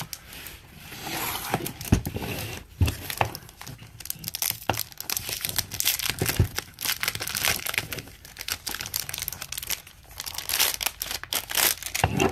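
Clear plastic wrap crinkling and tearing as it is peeled off a cardboard jewelry gift box, with a few knocks as the box is handled on the table.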